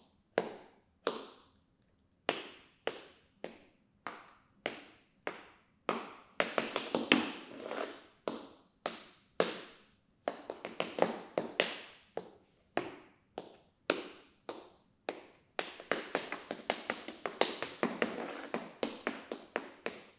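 Tap shoes striking a hard floor in unaccompanied tap dancing, each tap ringing briefly. It opens with single taps spaced about half a second apart, then breaks into quick flurries of taps about a third of the way in, around halfway, and through the last few seconds before stopping.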